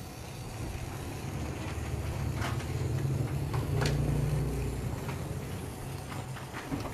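Small electric motor and gears of a toy line-following excavator running as it drives along a drawn black line. It makes a low hum that swells about halfway through and fades again, with a couple of faint clicks.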